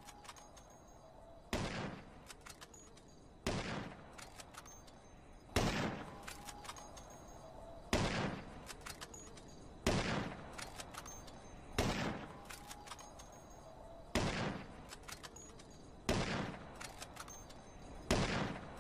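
Gunshot sound effect repeated nine times, about one shot every two seconds. Each shot dies away quickly and is followed by a few faint clicks.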